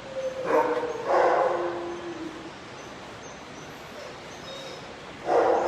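Kennelled shelter dogs barking: two barks close together near the start, the second drawn out for about a second, and another loud bark or call near the end.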